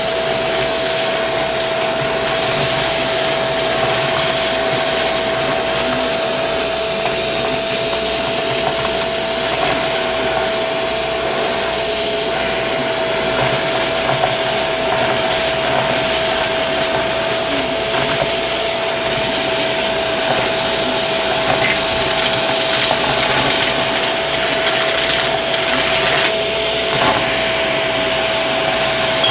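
Shark vacuum with a crevice tool running, a steady motor whine over the rush of suction air. Occasional faint crunches and rattles come through as sequins and paper bits are sucked up.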